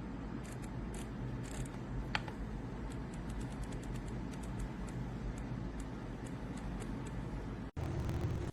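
Keystrokes on an RK Royal Kludge S98 mechanical keyboard with pale green tactile switches and PBT keycaps: irregular sharp clicks, a few a second, over steady low background noise. Near the end the sound cuts out for a moment and comes back with a louder low rumble.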